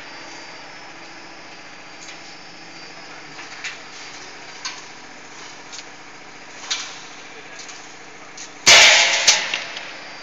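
Automatic gear cold-forging hydraulic press line running with a steady machine hum and light clicks, then a loud metal clang about nine seconds in that rings briefly, followed by a smaller knock.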